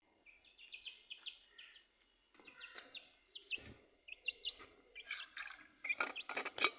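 Domestic chicken chick peeping: short high chirps in quick clusters, growing louder toward the end.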